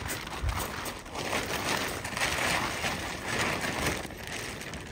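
Crinkling and rustling of a large silver plastic groundsheet being handled and spread out on the ground, a continuous crackly rustle.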